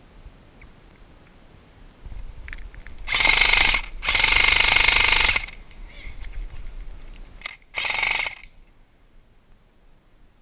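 Airsoft electric gun firing three full-auto bursts: a short one about three seconds in, a longer one of about a second and a half right after, and a short one near the end, each a rapid mechanical buzz of the gearbox cycling.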